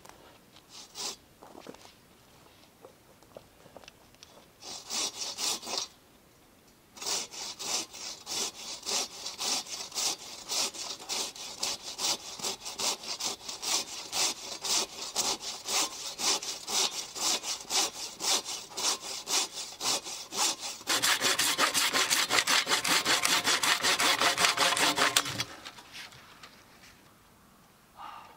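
A hand saw cutting through a log with steady back-and-forth strokes, a couple a second. Near the end the strokes speed up and get louder, then stop.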